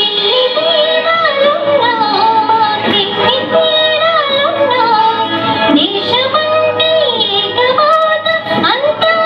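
A girl sings a melodic song into a microphone over instrumental backing music. Her voice slides and bends between notes.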